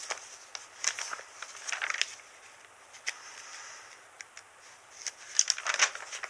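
Packaging being handled while a subwoofer is unboxed: irregular rustling with scattered light clicks and knocks, busiest near the start and again near the end.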